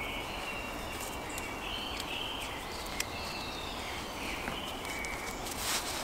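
Forest ambience: a bird's thin whistled notes stepping up and down in pitch, over a steady low background, with a few light clicks and a short rustle near the end.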